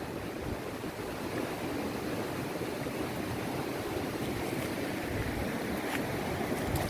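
Steady rush of a flowing river, with some wind on the microphone.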